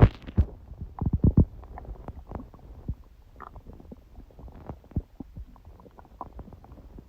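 Human stomach growling and gurgling: a run of short, irregular gurgles and pops, loudest in the first second and a half, then fainter and more scattered. The owner puts it down to digesting a large udon meal, her gut surprised by gluten after a long break from it.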